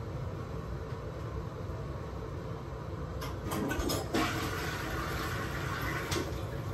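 Toilet flushing: water rushes in from about three seconds in, over a steady low hum.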